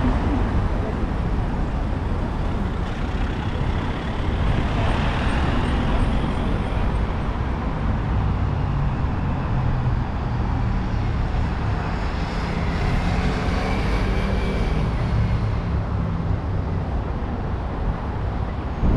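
Road traffic at a busy city junction: car and van engines running and passing on asphalt, a steady low rumble with a faint engine hum underneath.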